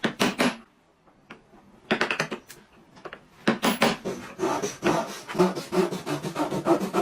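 A hand tool working wood in quick scraping, rasping strokes. It comes in short runs at first and grows into a dense, steady run of strokes from about four and a half seconds in.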